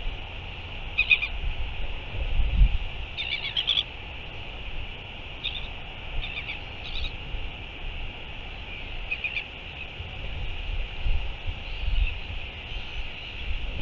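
Short, high bird calls in small clusters every second or two, over a low wind rumble on the microphone.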